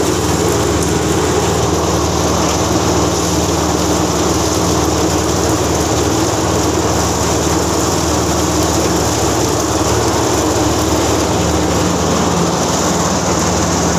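Drum-type chicken plucking machine running steadily, its spinning drum tumbling chickens against the rubber plucking fingers to strip their feathers.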